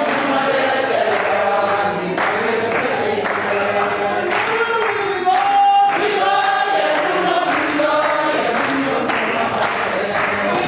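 A church congregation singing together, many voices at once, with hand claps keeping time about once a second.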